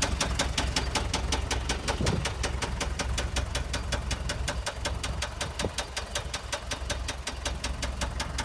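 Allis-Chalmers lift truck's four-cylinder turbo diesel engine idling, with an even, rhythmic diesel clatter.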